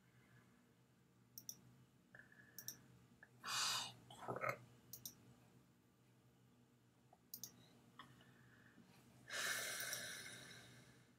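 Computer mouse clicks, each a quick double click of press and release, a few seconds apart, mixed with a person's breaths close to the microphone. The loudest is a long exhale near the end that fades out slowly.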